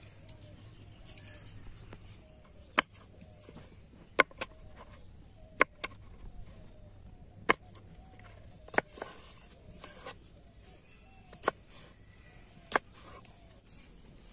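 A knife chopping through a green gourd onto a wooden board: about nine sharp chops, irregularly spaced one to one and a half seconds apart. Faint bird calls repeat underneath.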